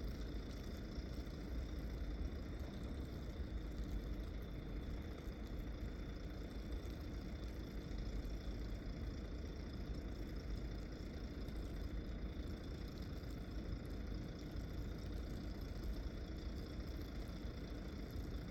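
Steady low mechanical rumble like an engine running, with a faint steady high whine over it.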